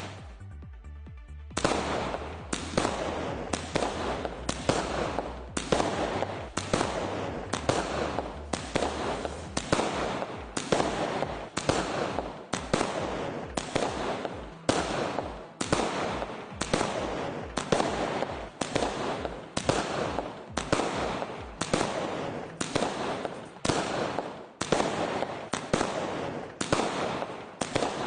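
A multi-shot fireworks cake (Ayyan Arabian Delight, 120 shots) firing shells one after another. Each shot is a sharp bang with a brief fading tail, coming in a steady run of about one and a half a second, starting about a second and a half in as the music ends.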